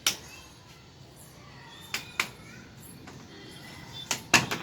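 Hard plastic knocks and clicks of UPVC pipe pieces and connector fittings being handled and pushed together. One sharp knock comes at the start, two about two seconds in, and a louder cluster near the end.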